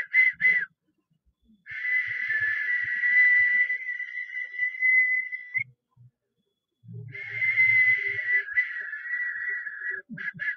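Shrill whistle-like tones on one high pitch. There are a few short pips at about four a second, then a long held tone of about four seconds that bends up at its end, a second long tone of about three seconds, and quick pips again near the end.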